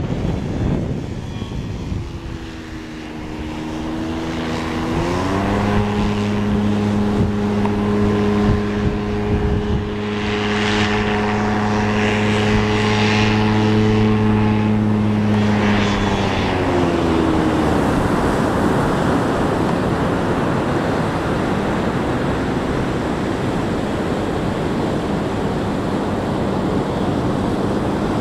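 Engine and pusher propeller of a Polaris flying inflatable boat flying past: a steady pitched drone builds a few seconds in and holds, then falls in pitch and fades a little past the middle. A steady rush of wind and surf takes over as it comes down to the beach.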